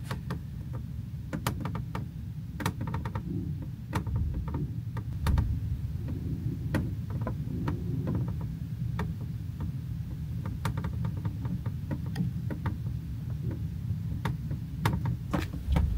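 Constant creaking and irregular ticking and knocking from the cabin's balcony area as the cruise ship rocks side to side in rough seas, over a steady low rumble.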